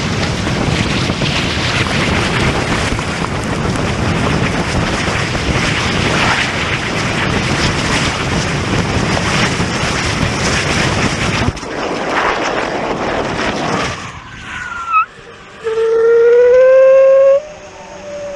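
Rocket motor firing close to the camera: a loud, rough roar with wind-like buffeting on the microphone, which drops sharply about 11 seconds in and dies away by about 14 seconds. Near the end, a wavering tone rises slowly in pitch for a few seconds.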